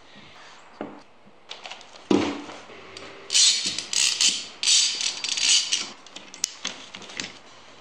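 Steel bar clamps being fitted and tightened on a stack of glued wooden rings: a few knocks, the loudest about two seconds in, then a quick run of short metallic scraping and rattling sounds as the clamp jaws slide and ratchet along the bars.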